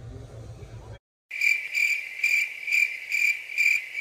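Cricket chirping sound effect, the stock gag for an awkward silence: a steady chirp repeating about twice a second. It comes in about a second in, after faint room hum cuts off to dead silence.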